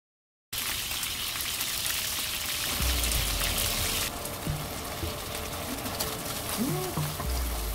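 A steady rushing water sound for the first few seconds, then, after an abrupt change about four seconds in, a ketchup-and-black-vinegar sauce sizzling in a wok as a spatula stirs it. Background music with low bass notes plays underneath.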